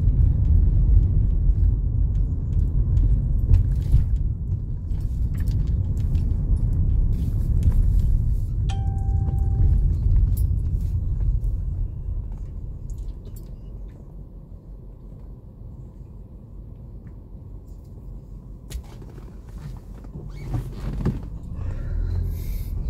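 Car road noise heard inside the cabin while driving: a low rumble that fades to a quieter hum about twelve seconds in and builds again near the end. A short single beep sounds about nine seconds in.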